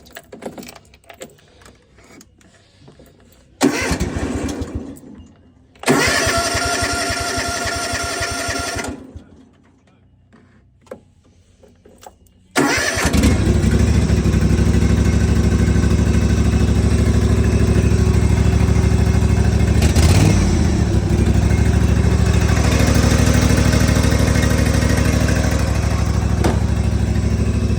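Rover Lawn King ride-on mower being cold-started after three weeks unused, tried without the choke. After a few clicks, the starter cranks it in two short spells. About 13 seconds in, the engine catches and keeps running steadily.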